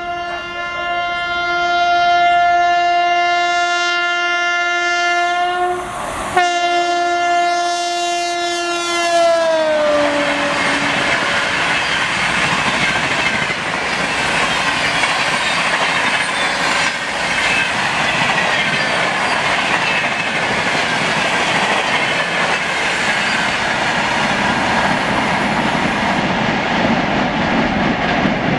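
A WAP-7 electric locomotive's horn sounds continuously as the Shatabdi Express approaches at about 130 km/h. The horn breaks briefly about six seconds in, and its pitch drops as the locomotive passes about ten seconds in. The coaches then rush past with a steady rattle of wheels over rail joints, which thins out near the end.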